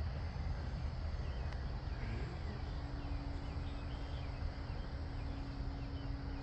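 Wind rumbling on the microphone, with the faint steady drone of a distant RC aerobatic plane's motor coming in about two and a half seconds in. A few small bird chirps sound in the middle.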